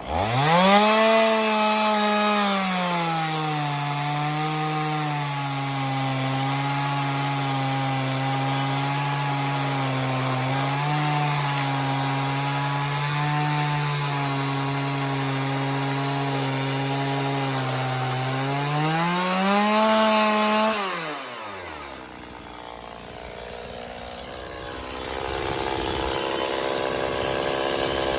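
Small two-stroke chainsaw (Stihl MS170) ripping lengthwise through a log in a chainsaw mill: it revs up, then runs at a steady, lowered pitch under load. About twenty seconds in, the pitch rises briefly and the engine drops away to a quieter idle.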